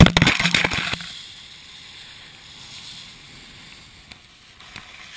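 An action camera tumbling in snow during a fall on skis: a rapid run of loud knocks and scrapes in the first second. A steady hiss of sliding over snow follows.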